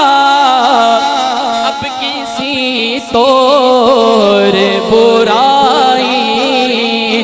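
A man's voice singing a naat without instruments through a handheld microphone. He draws out long, wavering held notes without words, with a short break about three seconds in.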